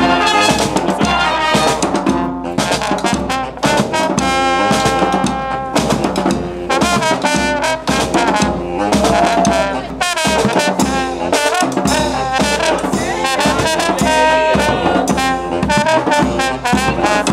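Street brass band playing a lively tune, with trumpets, trombone and saxophone over a bass drum.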